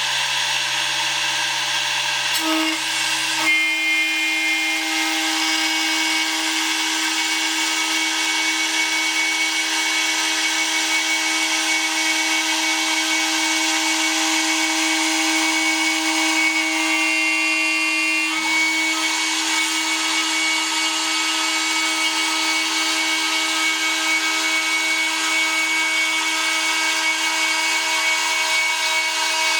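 CNC router spindle running steadily while milling a 2 mm aluminium plate: a steady whine with cutting noise. Its pitch pattern shifts slightly about three and a half seconds in and again around eighteen seconds in.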